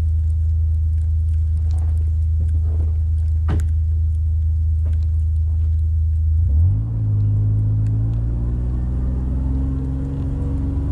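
Kawasaki Mule Pro FXT side-by-side's three-cylinder engine running steadily as the vehicle drives. About two-thirds of the way through, its pitch rises and holds higher as it speeds up.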